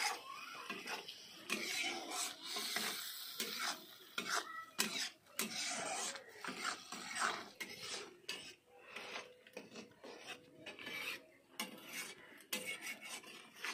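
Metal spatula stirring and scraping thick curry gravy around a metal kadhai, an irregular run of rasping scrapes against the pan.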